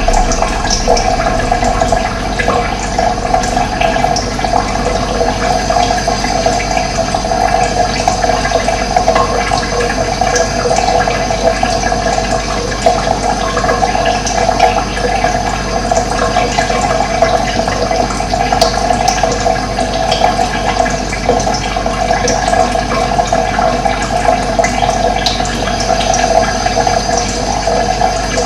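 Running water flowing steadily, an even rushing sound that does not change.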